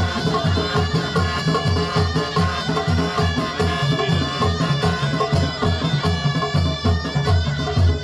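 Live Moroccan traditional folk music played through a PA: a fast, steady drum beat under a sustained melody line.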